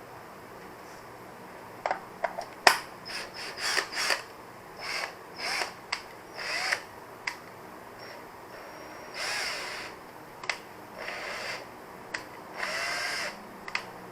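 Ryobi cordless drill's motor run in a series of short trigger pulls, each spinning up and winding down again, with a few sharp clicks between. The old drill is being test-run on a new chuck and a battery pack rebuilt with new cells.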